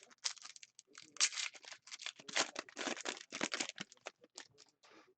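Trading cards and pack wrapping being handled: a quick run of papery scrapes and rustles, busiest in the middle, dying away near the end.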